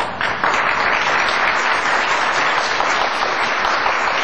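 Audience applauding: a few claps, then dense clapping that swells about half a second in and holds steady.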